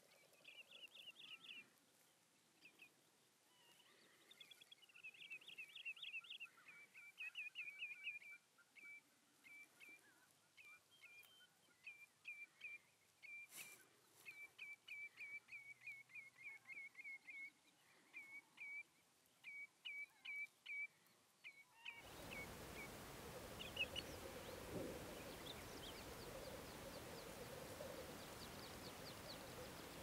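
Common snipe calling: a long, faint series of short, sharp notes repeated about twice a second, stopping about two-thirds of the way through. After that only a steady faint hiss with a low hum remains.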